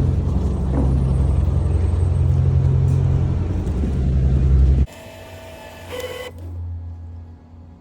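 A loud, steady low mechanical rumble that cuts off abruptly about five seconds in, followed by quieter background sound with a few faint thin tones.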